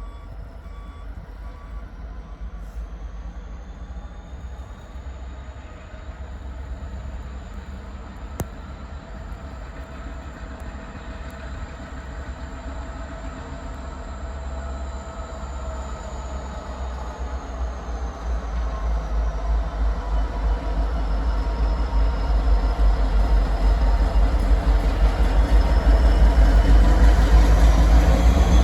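Approaching train: a steady low rumble with a faint high whine, growing steadily louder over the last dozen seconds or so.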